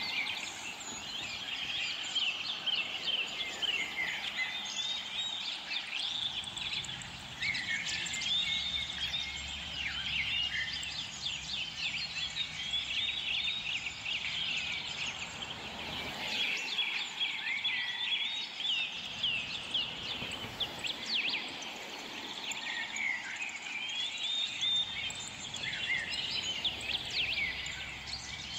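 Many small songbirds chirping and twittering all through, a dense mix of short, quick calls. A faint low rumble comes and goes underneath.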